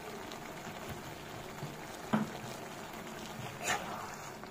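Chicken and onion masala cooking in a pan with a steady sizzle and bubble. There is a sharp knock about two seconds in and a short scrape at about three and a half seconds.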